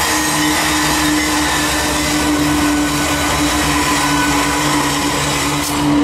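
Several GE diesel-electric freight locomotives, a Dash 9 among them, passing close by under power: a steady loud engine drone with a held tone and a pulsing lower hum.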